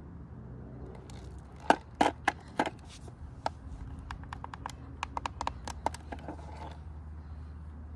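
Buttons of a Sylvania alarm clock clicking as they are pressed to set the time: a run of sharp clicks over about four seconds, some coming quickly one after another.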